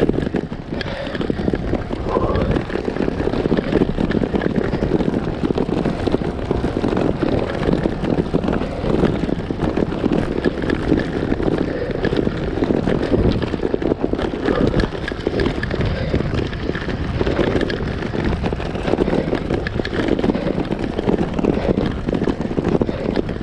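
Road bike rattling and juddering over cobblestones: a continuous, dense chatter of tyres, frame and handlebars shaking on the rough pavé.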